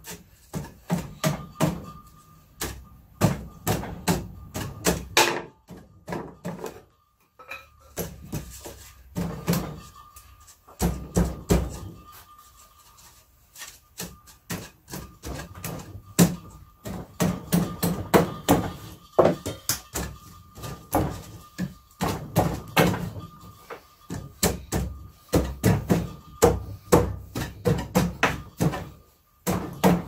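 Thin wooden shelf boards being forced by hand into tight slots of a wooden rack. Runs of rapid wood-on-wood knocks and scrapes are broken by a few short pauses, and the fit is tight because the slightly wet wood has swollen.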